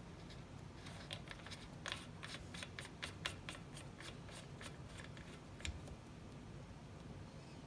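Black plastic cable gland being turned and threaded into a hole in a VFD enclosure by hand: a run of quick light clicks, about three a second, that stops a little before the end.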